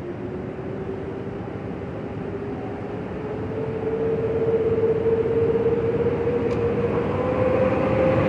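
PKP EP09 electric locomotive hauling a passenger train as it approaches and draws close. A rumbling run with a whine that slowly rises in pitch, growing louder.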